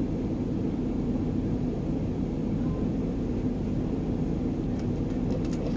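Steady low rumble of a minibus's engine, heard from inside its cabin.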